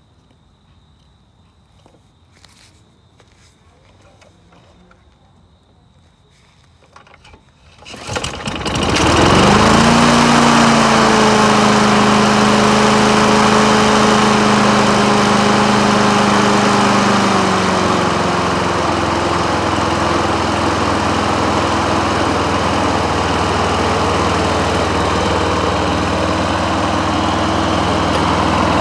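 Briggs & Stratton Quantum single-cylinder four-stroke on a Rover lawn mower is pull-started about seven seconds in, catches at once and runs steadily at high speed. Its pitch drops slightly and settles a little past halfway. Before the start there are only a few faint clicks of handling at the engine.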